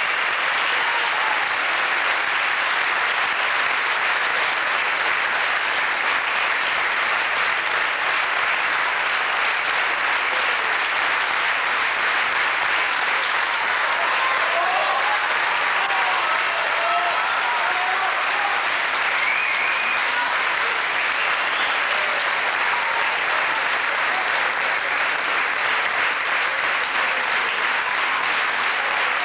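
Large audience applauding steadily during a stage curtain call, with a few voices calling out faintly in the middle.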